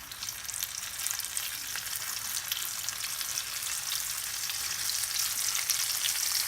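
Flour-coated chicken pieces sizzling and crackling in hot oil in a wok, flash-fried on their first fry. The sizzle grows steadily louder.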